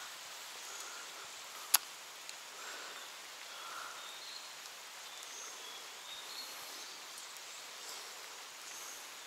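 Quiet outdoor ambience beside a reservoir: a steady faint hiss with scattered faint high chirps, and one sharp click a little under two seconds in.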